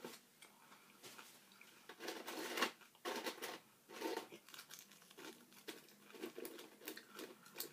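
Quiet, irregular crunching of chips being chewed, mixed with soft crinkling of a paper food tray as chips are picked out of it.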